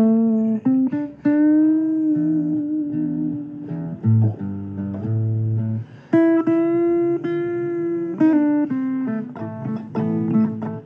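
Guitar playing a blues instrumental break between verses. A run of single plucked notes, some held and some bent in pitch.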